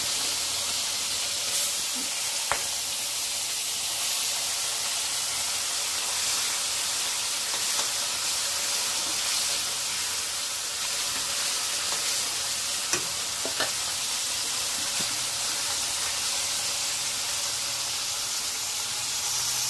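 Turmeric-coated fish sizzling steadily as it shallow-fries in hot oil in an aluminium kadai. A spatula stirs it and gives a few sharp taps against the pan, one about two and a half seconds in and a couple near the middle.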